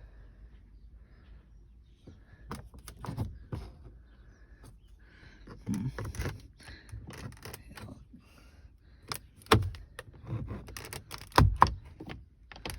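Plastic lower dash trim panel of a 2016 Honda HR-V being pried with a plastic trim removal tool. Scraping and creaking plastic is broken by a series of sharp clicks and knocks as the retaining clips separate, the loudest about three-quarters through and again near the end.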